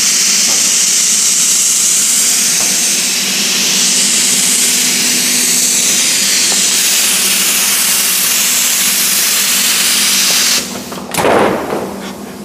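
Compressed air hissing loudly and steadily in a sheet-metal workshop for about ten seconds, then cutting off, followed by a brief rough clatter. A low machine hum runs underneath.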